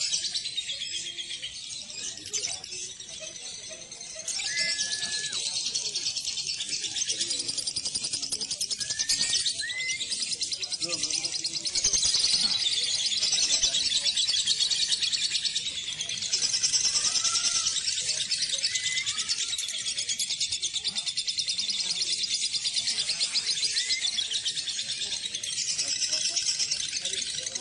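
Lovebird chatter: a long, fast, high-pitched rattling trill (the 'ngekek' song), going on without a break, with short whistled rising notes now and then.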